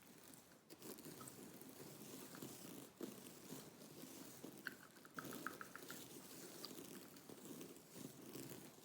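Quiet gum chewing close to the microphone, with small wet clicks and a quick run of about six smacks in the middle.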